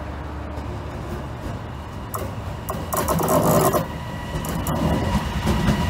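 Mercitalia Rail E494 electric locomotive approaching and passing, its low rumble growing louder. A harsh scraping burst of wheels on rail comes about three seconds in, and a steady whine sets in near the end.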